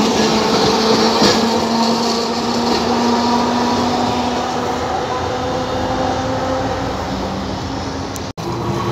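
Blue-and-cream Raml-line tram in Alexandria passing and pulling away. Its electric motors hum steadily, there is a click of wheels over a rail joint about a second in, and the sound gradually fades. The audio drops out for an instant near the end.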